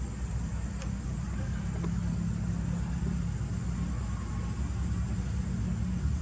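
Steady low outdoor rumble with a faint, thin, high steady whine above it and a couple of faint ticks.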